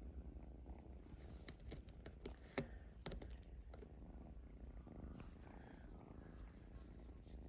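Kitten purring, a faint steady low rumble, with a cluster of sharp clicks and scratches in the first half.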